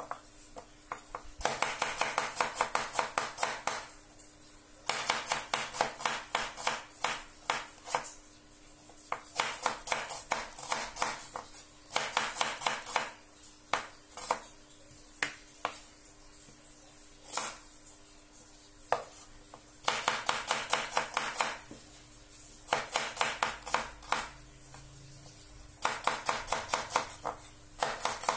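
A kitchen knife thinly slicing shallots on a wooden cutting board. It comes in quick runs of sharp taps against the board, each lasting a second or more, with short pauses between.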